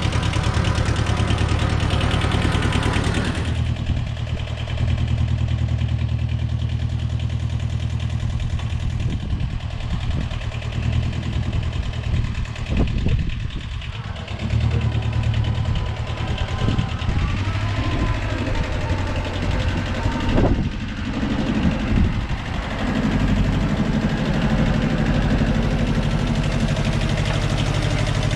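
Zen-Noh ZB6000 compact tractor's engine running steadily, its note easing about three seconds in, with a few knocks and clunks through the middle as it works.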